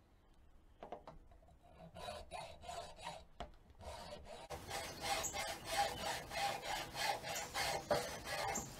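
Hacksaw cutting through the ground spike of a plastic raised-garden-bed stacking stake, in repeated back-and-forth strokes. The sawing starts faintly about two seconds in and gets louder and steadier about halfway through.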